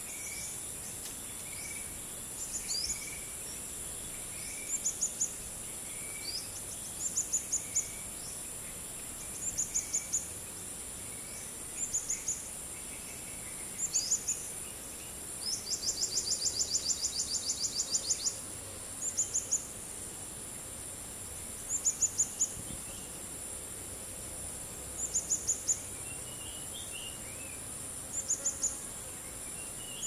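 Morning forest-clearing ambience: a steady high insect drone of crickets and cicadas, over which a nearby call repeats in quick groups of three to five high chirps every couple of seconds, with one longer run of chirps about halfway. Faint softer notes repeat about once a second early on, and a few faint bird calls come near the end.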